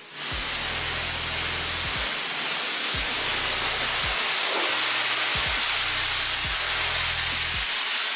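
Pressure washer lance spraying a jet of water onto a rug: a loud, steady hiss that starts abruptly at the beginning, with background music underneath.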